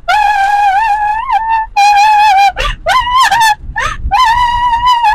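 High-pitched wailing cries, several long wavering notes broken by sharp gasps, over a low rumble of the storm and the car.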